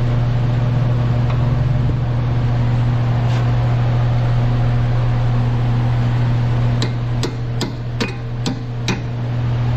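Hammer tapping six times in quick succession, about two to three blows a second, starting about seven seconds in, over a steady low hum.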